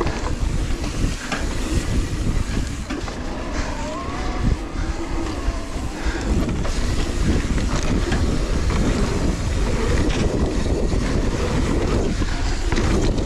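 Mountain bike riding fast down a dry dirt trail: wind buffeting the action camera's microphone over a steady rumble of tyres on dirt, with the bike clattering over bumps.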